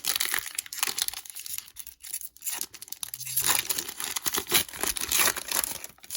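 Plastic wrapper of a 2020 Panini Prizm football card pack being torn open and crinkled, in quick irregular crackles.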